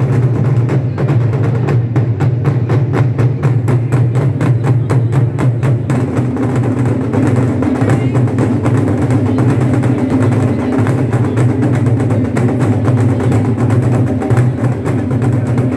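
Taiko drum ensemble playing loud and without a break: several players striking barrel-shaped taiko drums with sticks in a fast, even rhythm of rapid strokes over a deep booming drum tone.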